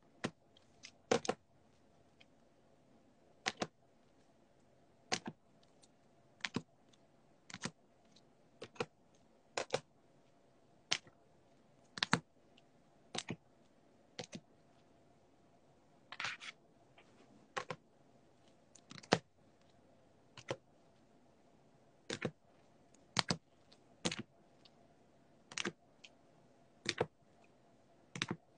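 Light, sharp taps and clicks at an uneven pace, roughly one a second and often in quick pairs: trading cards being set down on a table while they are sorted into piles.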